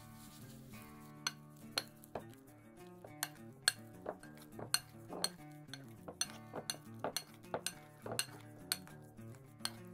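Metal spoon stirring a thick cream cheese filling in a glass bowl, clinking and knocking against the glass at irregular moments, over soft background music.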